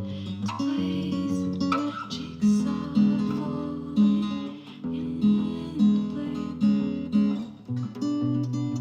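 Acoustic guitar strummed in a steady rhythm of sharp chord strokes, with the bass notes dropping lower near the end.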